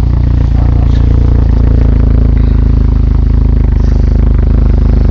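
1992 Eagle Talon's four-cylinder engine running steadily with a fast, even knocking clatter.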